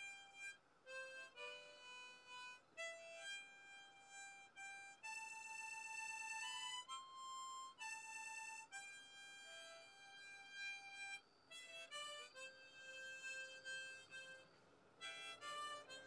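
Harmonica playing a slow melody of long held single notes that step up and down in pitch.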